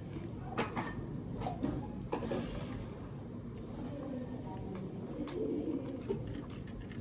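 Eating close to the microphone: chewing, with a few sharp clicks and crunches of food and utensils.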